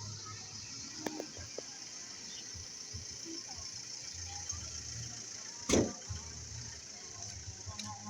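Outdoor background noise: a steady high-pitched hiss with a low rumble that comes and goes, and one sharp thump a little under six seconds in.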